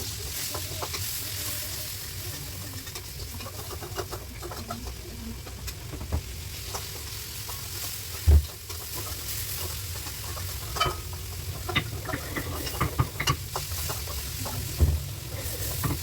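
Chicken sizzling as it fries for ayam kecap, while a spatula stirs it and scrapes against the pan in short clicks and scrapes, more often toward the end. A single dull knock about eight seconds in is the loudest sound.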